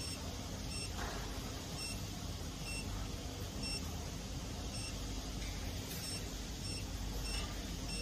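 Short, high electronic beeps repeating about once a second, over a steady low hum from the wire nail collating machine's control panel.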